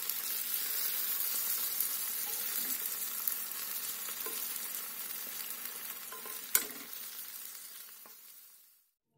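Fried aubergine, pepper and tomato slices sizzling in a frying pan, a steady hiss with small clicks as tongs move the pieces. There is one sharp click about two-thirds of the way through, and the sizzle fades away near the end.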